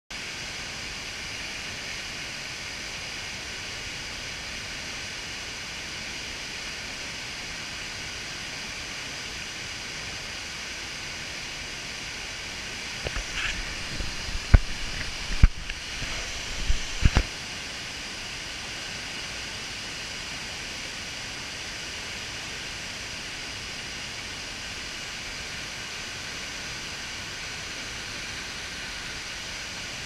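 A waterfall in full rainy-season flood, swollen by daily rains, giving a steady rush of water plunging into its pool. About halfway through, several sharp knocks with a low rumble come over a few seconds.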